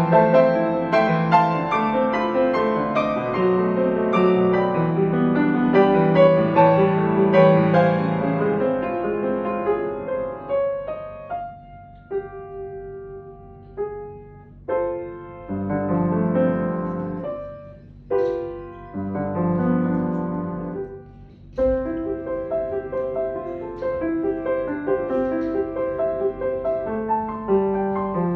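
Background music: piano playing, busy at first, then in sparser phrases with brief pauses from about ten seconds in.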